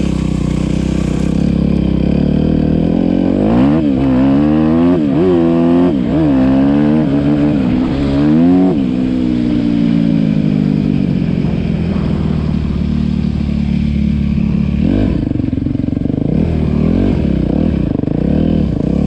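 2009 Yamaha WR250R's 250 cc single-cylinder four-stroke engine running through an Akrapovic exhaust, revved up and down about five times, then settling back to idle, with a few smaller revs near the end.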